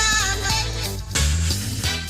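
Funk-soul song with a steady bass line and a sung vocal line.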